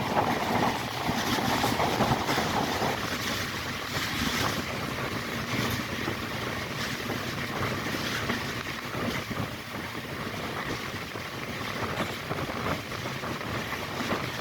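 A moving train: a steady rumble and rattle with wind noise, a little louder for the first few seconds.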